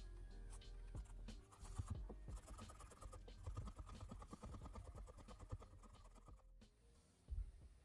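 Quiet, rapid back-and-forth rubbing of a cloth with polishing compound over a vintage fountain pen's barrel, polishing it in a dense run of fast strokes. The rubbing stops abruptly near the end, followed by a single soft knock.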